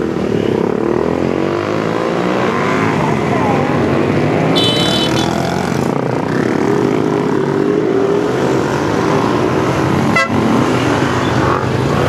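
Several cruiser motorcycle engines running as a line of bikes rolls slowly past, their overlapping engine notes rising and falling as each one passes. A brief high-pitched beep sounds about halfway through.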